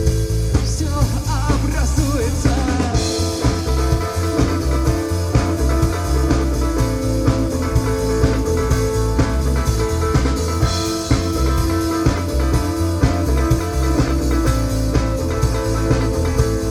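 Live rock band playing a song: a drum kit keeping a steady beat under guitar and bass, mostly instrumental.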